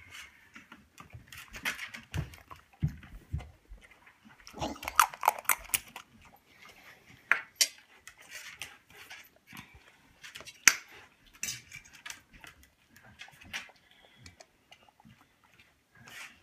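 Two dogs, an Australian cattle dog and a pit bull, being hand-fed rice from a metal spoon: irregular snapping and mouth noises with sharp clicks of spoon on teeth, busiest about five seconds in.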